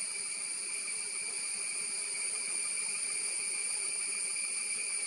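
Steady, high-pitched chorus of forest insects, droning without a break.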